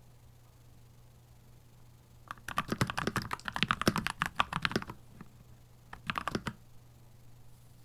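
Keychron C2 Pro 8K mechanical keyboard being typed on: a fast run of keystrokes lasting about two and a half seconds, then a short flurry of a few keys about a second later.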